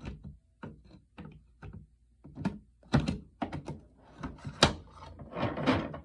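Hoover WindTunnel vacuum cleaner parts being handled and fitted together: a string of knocks and clicks, with the sharpest snap about two-thirds of the way through and a brief rattle near the end.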